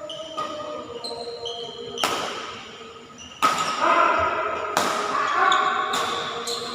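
Badminton rackets striking a shuttlecock in a rally: four sharp hits about a second and a half apart, each with a brief echo. Background music with held notes plays underneath.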